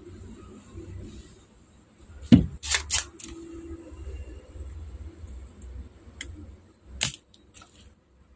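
A spring-loaded desoldering pump snaps twice, once about two seconds in and again near the end, with a few lighter clicks in between, as it sucks molten solder off the speaker's circuit-board joints.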